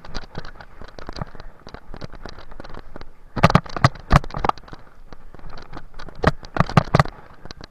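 Mountain bike rattling and knocking as it rolls fast over a rough dirt trail. There are two spells of sharp, clattering knocks, one about three and a half seconds in and one just past six seconds, as the bike jolts over bumps.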